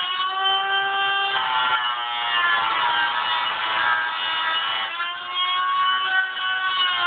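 Handheld rotary tool with a cut-off disc grinding through a car's sheet-metal fender to cut a sidemarker hole, a steady whine whose pitch dips and recovers a few times as the disc bites.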